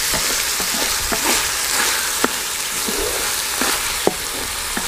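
Chicken keema with tomatoes and green chillies sizzling as it is fried in a metal pot, with a steady hiss. A wooden spatula stirring it gives a few sharp clicks and scrapes against the metal. The keema is being fried further so that the tomatoes and chillies soften.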